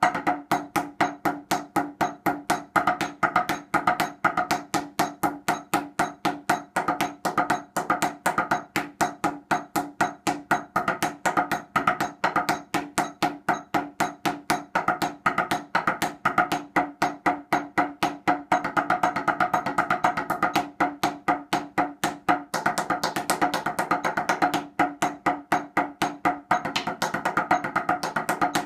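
Drumsticks striking a five-pad practice set laid out like marching tenor drums, in a fast, even stream of sharp wooden taps moving around the pads.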